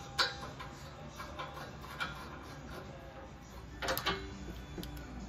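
A few light metal clicks and knocks as a bumper bolt and its hardware are fitted by hand, then a short run of rapid ticks from a socket ratchet wrench about four seconds in.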